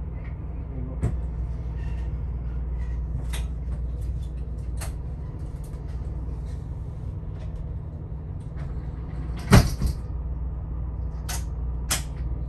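Steady low rumble of the moving Amtrak California Zephyr passenger train heard from inside the car, with scattered clicks and knocks on top. The loudest is a close double clack about nine and a half seconds in, and two more sharp knocks come near the end.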